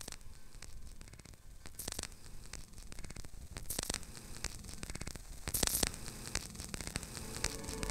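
Cassette hiss and static from a Tascam Portastudio 414 mkII four-track playing back a noisy synth track. A swish of high noise recurs about every two seconds, growing louder each time. Pitched tones start to come in near the end.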